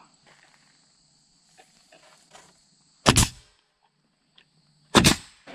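Pneumatic coil nailer firing twice, about two seconds apart: two loud sharp shots, each with a brief hiss of exhaust air.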